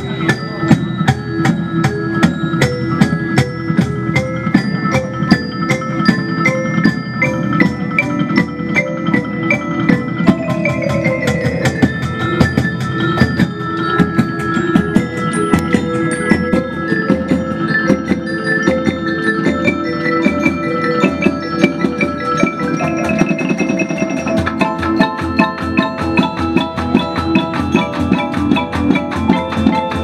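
Children's percussion band playing live: mallet instruments such as marimba, xylophone and glockenspiel carry the melody over a steady drum beat. About ten seconds in there is a fast downward run of notes.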